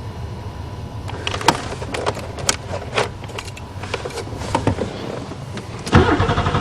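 Scattered clicks and knocks of hands working around the Buick Regal's cabin and controls. About six seconds in, the starter begins cranking the 3.8 V6 with a steady, even chug, and the engine does not catch: a no-start, with no fuel pump heard priming.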